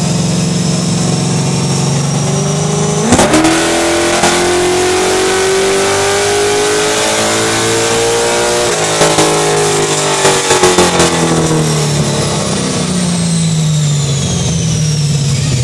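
Third-generation Chevrolet Camaro making a dyno pull on a chassis dynamometer: the engine runs steadily, then about three seconds in, with a few sharp cracks, it climbs in pitch through a long wide-open-throttle run. About nine seconds in a burst of pops comes and the pitch falls as the car winds down, with a high whine falling away near the end.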